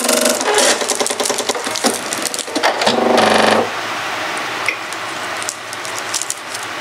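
Pfaff Creative 4.5 sewing and embroidery machine's motor whirring in short spells as it starts up after being switched on, the longest and loudest spell about three seconds in.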